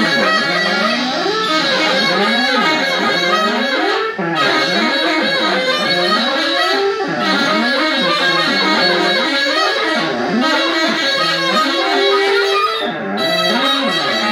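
Electric guitar played live, a winding line of sliding and bending notes with no drums behind it.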